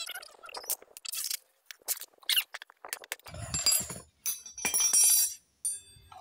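Squeaks, scrapes and knocks of hand tools working on the metal parts of a Honda Supra X 125 engine being taken apart, with two louder scraping stretches a little past the middle.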